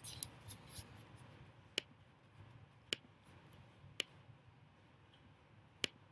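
Faint computer mouse clicks, four sharp single clicks roughly a second apart, as an on-screen magnifier is zoomed in, with a soft scratchy rustle in the first second.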